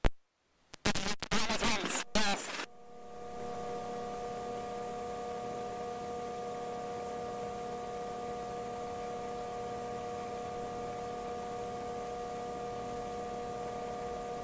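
Helicopter intercom audio: loud choppy bursts cut in and out during the first couple of seconds, then give way to a steady hum with several fixed tones over a hiss.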